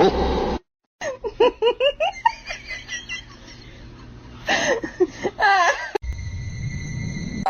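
Laughing in short, quickly repeated bouts, two runs of them, after a brief loud noisy burst at the very start.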